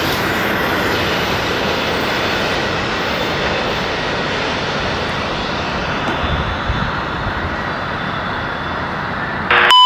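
Steady rushing noise of a passing train, its steel wheels running on the rails, fading slightly as it goes.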